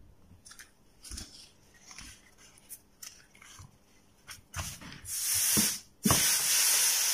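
Light knocks and rubbing as a steam iron and a cloth are handled. About five seconds in, the steam iron lets out a short hiss of steam, then a steady steam hiss.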